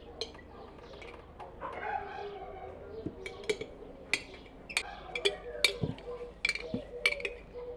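Sharp clicks and clinks of kitchenware being handled on a table: plastic containers, bowls and a spoon knocking. There are about a dozen of them, most in the second half.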